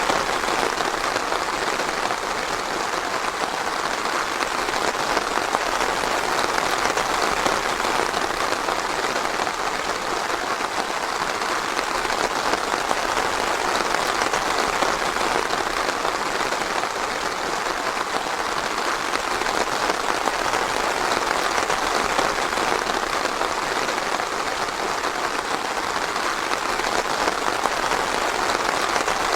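Steady, even rain falling in a forest, a dense hiss of countless drops with no single drop standing out.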